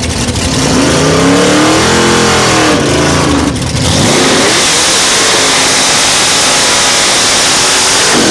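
Lowered red truck's engine revving up and down a few times, then held at high revs from about four seconds in while the rear tyre spins on the pavement in a burnout. The revs drop away at the very end.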